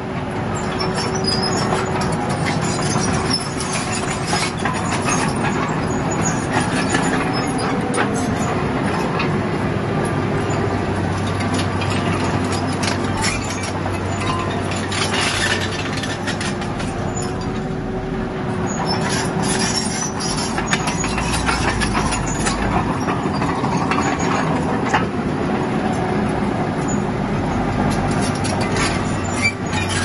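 Bulldozer's diesel engine running steadily under work, with frequent metallic clanks and scraping over it.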